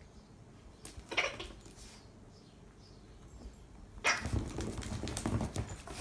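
A dog tearing into a toy gift: a short burst of scuffling and rustling about a second in, then a longer, louder stretch of thrashing and scuffling from about four seconds in.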